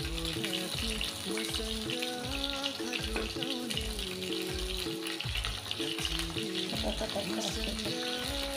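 Hot oil sizzling steadily around battered mushroom pakoras frying in a pan as they are turned with a slotted spoon. Background music with a steady beat plays over it and is the loudest sound.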